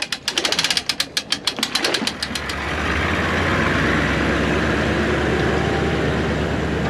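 An engine, likely a boat's outboard motor, turns over with a fast run of cranking clicks. It catches about two seconds in and then runs steadily.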